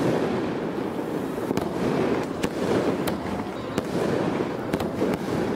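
Fireworks crackling: a dense, continuous crackle with a few sharper pops scattered through it.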